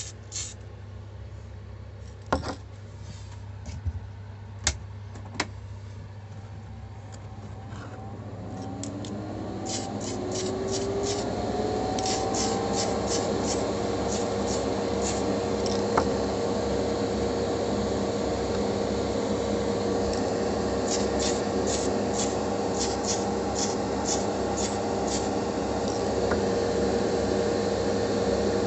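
A small electric motor spins up about eight seconds in, its whine rising and then holding steady over a steady low hum. The running noise builds and stays loud, with clusters of short sharp clicks on top.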